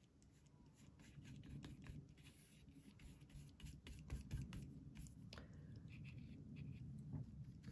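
Faint scratchy brushing of a small flat paintbrush working thick acrylic paint onto watercolor paper, in short irregular strokes.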